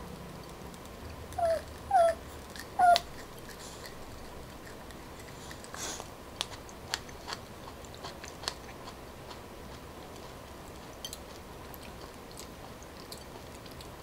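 A person chewing a coconut weevil larva (đuông dừa): three short vocal sounds falling in pitch about one and a half to three seconds in, then a scatter of soft clicks and smacks of the mouth as she chews.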